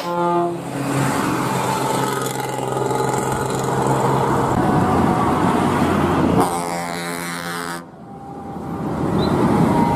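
Bus air horns sounding a long, steady multi-tone blast over engine and highway traffic noise, then a second blast of about a second and a half. After an abrupt cut, traffic noise swells as another bus approaches.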